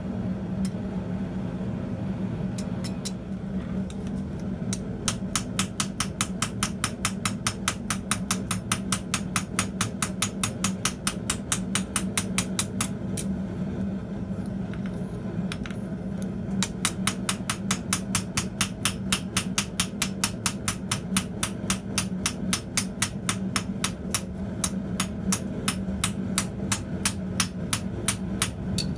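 Hammer with a rounded peen face striking a copper disc on an anvil face, texturing it with fast, even blows at about four a second. A few scattered taps come first, then two long runs of blows with a pause of a few seconds between them.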